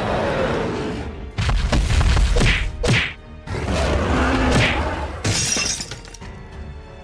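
Background music with cartoon sound effects: several sudden crashing bursts and quick swooping pitch sweeps.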